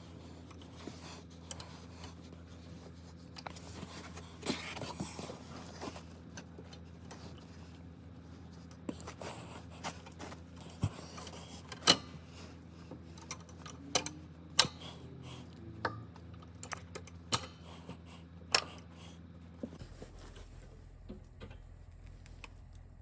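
Scattered metallic clicks, clinks and knocks of tools and steel parts being handled while a motorcycle center stand's return spring is worked into place, with a few sharper clanks along the way.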